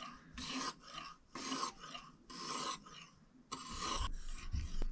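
Kitchen knife being sharpened: the edge is drawn across an abrasive in short strokes, about two a second, with a longer stroke near the end.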